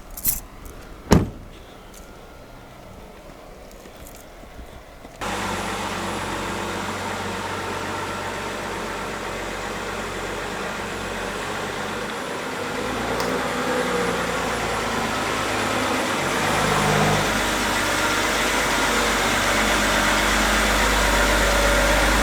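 A car engine running steadily. It comes in abruptly about five seconds in, after a quieter stretch with a single sharp click, and grows gradually louder toward the end.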